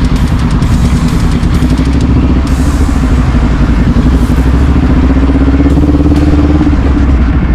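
Kawasaki Z400 parallel-twin motorcycle engine running, its pitch climbing slowly for several seconds, then falling off near the end.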